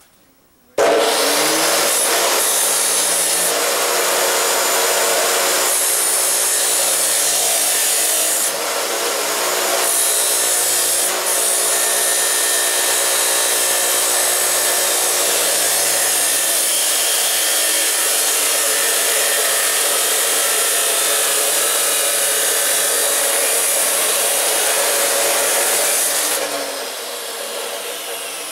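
Power tool with an abrasive cut-off wheel cutting through steel stock. It starts suddenly about a second in and runs steadily and loudly, with a brief dip around nine seconds. It drops to a quieter running near the end.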